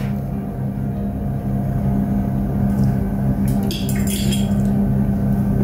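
Steady low hum with a pulsing undertone, with a few brief soft noises about three and a half seconds in.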